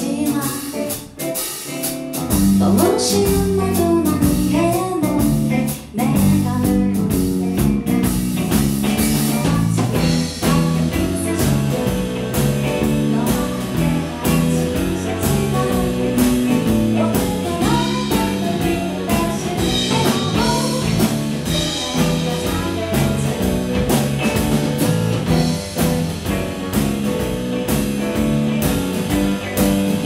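Live music: a woman singing with acoustic guitar accompaniment. The music grows fuller and louder about two seconds in.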